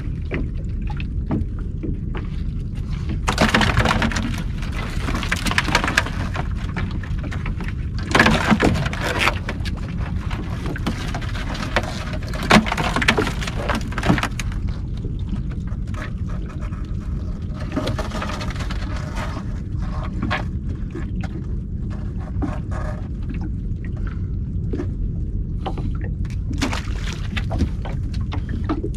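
Knocks, rattles and noisy bursts from crabs being handled and sorted out of a crab pot on the floor of a small boat, over a steady low rumble of wind and water. The loudest bursts come in three spells, a few seconds in, around eight seconds in and around twelve seconds in.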